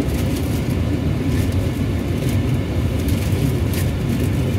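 Steady low road and engine rumble inside a pickup truck's cabin while driving, with a few faint clicks.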